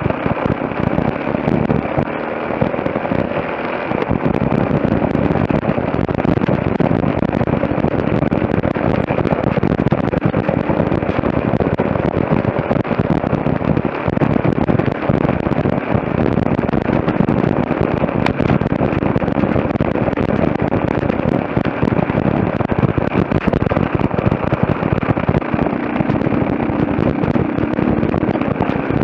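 Off-road trail motorcycle running along a rough dirt track, its engine note mixed with a continuous rapid crackle and knocking from the bumpy ride.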